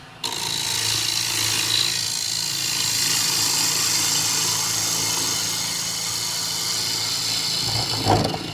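Bowl gouge cutting into the inside of a cherry bowl spinning on a wood lathe: a steady hissing cut that starts suddenly a moment in and stops near the end, over the low hum of the lathe. A brief thump comes just before the cut ends.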